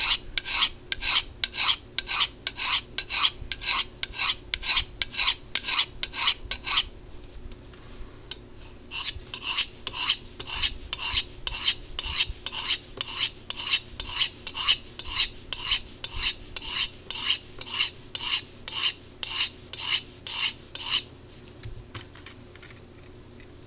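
A 440 stainless steel knife blade drawn over and over across a rough-grit ceramic sharpening rod, a rasping scrape about two or three strokes a second. The strokes pause for about two seconds around seven seconds in, resume, and stop a few seconds before the end. A dull edge is being reset on the coarse rod.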